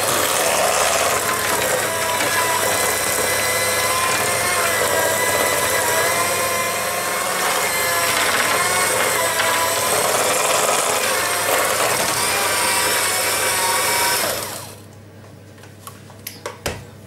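Electric hand mixer running steadily, its beaters whisking thick cake batter in a stainless steel bowl, the motor's whine wavering slightly in pitch. It switches off abruptly about fourteen seconds in, followed by a few light clicks.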